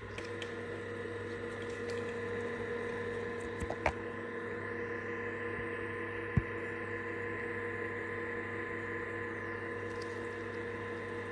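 UV curing lamp running with a steady electrical hum and high whine, with a couple of small clicks, then switched off at the very end.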